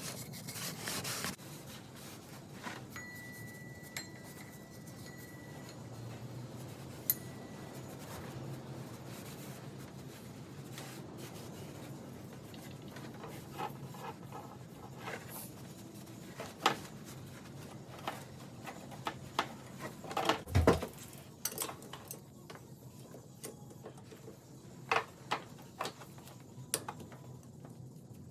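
Hand tools and metal parts clinking and rubbing during engine work, in scattered sharp clicks and knocks. A short run of louder knocks comes about twenty seconds in, over a faint low hum.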